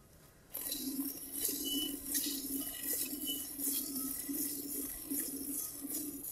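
Hand-milking a water buffalo into a metal pot: streams of milk squirt into the pot at about two squirts a second, each a short hissing spurt with a slight ring from the metal. It starts about half a second in.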